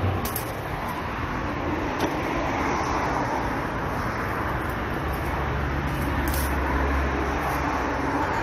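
Steady background traffic noise, with a vehicle engine's low hum growing louder about five seconds in and then easing. A few faint clicks from the fruit and branches being handled.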